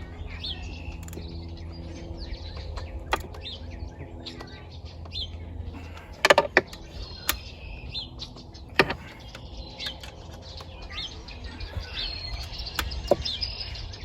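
Birds chirping and tweeting, with a few sharp clicks and clinks of hand tools at work on the outboard's cylinder head bolts, a cluster of them about halfway through. A low steady hum fades out about midway.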